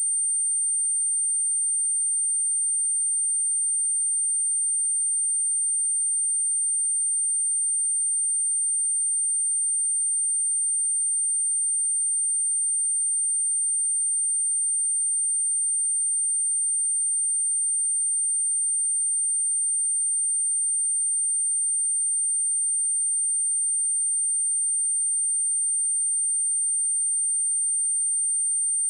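Steady pure sine-wave test tone at 8853 Hz, a single high-pitched whistle-like pitch held unchanged at constant loudness.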